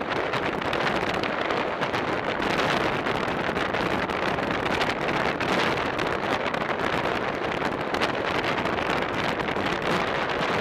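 Steady rushing wind noise on the microphone of a camera mounted on a road bicycle moving at racing speed.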